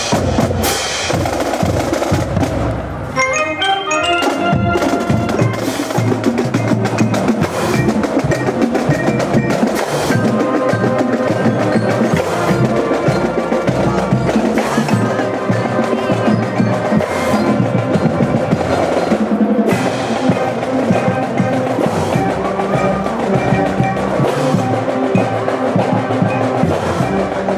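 Marching band playing a tune as it passes, woodwinds over a steady drum beat, with a quick run of high notes about three seconds in.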